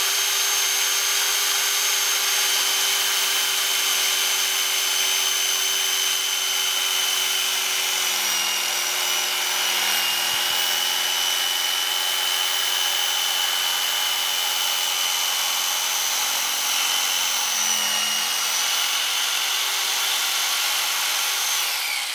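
Porter-Cable orbital jigsaw running at full speed and cutting a curve through a clamped wooden board: a steady high whine over the rasp of the reciprocating blade, which dips slightly in pitch twice under load and winds down right at the end as the cut is finished.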